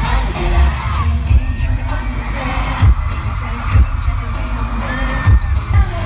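Live pop concert music played loud through an arena sound system, with heavy bass-drum beats and voices singing over it.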